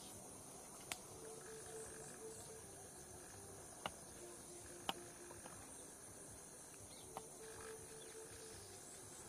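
Faint forest ambience of a steady high-pitched insect chorus, with four sharp clicks scattered through it and a low, pulsing tone that comes and goes three times.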